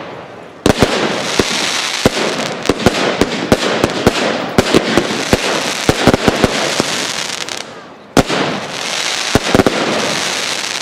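Aerial fireworks shells bursting in a professional display: a rapid string of sharp bangs and cracks over a dense crackling hiss. A loud bang just under a second in opens the first volley. It thins out, and a second loud bang about eight seconds in sets off another.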